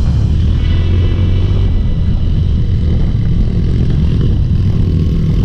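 Trail motorcycle engine running at a steady speed, a low, even drone.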